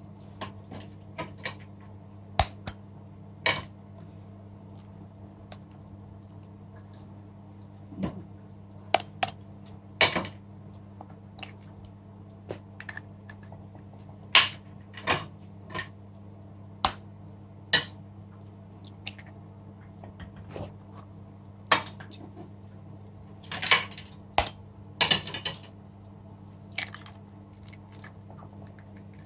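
Raw eggs being cracked one after another into a bowl: scattered sharp taps and shell cracks as each egg is knocked and broken open. A steady low hum runs underneath.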